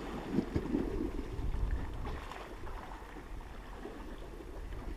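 Wind rumbling on the microphone, rising and falling, over the wash of the sea against the sea wall below.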